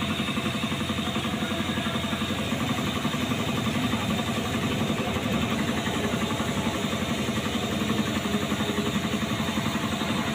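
An engine idling steadily with an even, rapid pulse.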